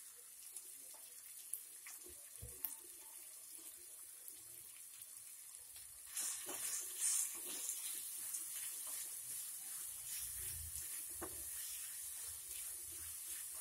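Chicken pieces and onion frying in oil in an aluminium kadai: a steady sizzle that grows louder about six seconds in, as a spatula stirs and scrapes the pan with small clicks. The salted chicken has let out its water, so it sizzles wet, in its own juices.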